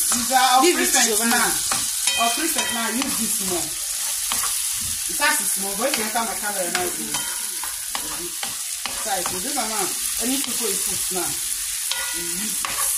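Sliced sausage and tomatoes sizzling in a frying pan while a wooden spatula stirs and scrapes through them.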